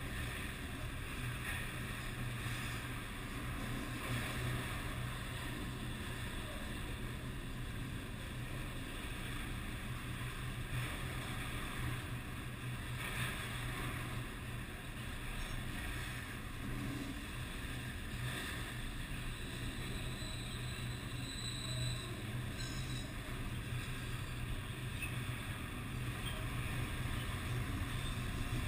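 Freight train of autorack cars rolling past: a steady rumble of wheels on the rails. Near the end it grows louder as a diesel locomotive at the rear of the train approaches.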